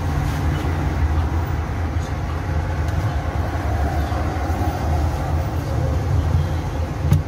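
Electric drill with a propeller mixing paddle running steadily in a tub of thin bungeoppang batter: a low, even motor hum with the churning of the batter.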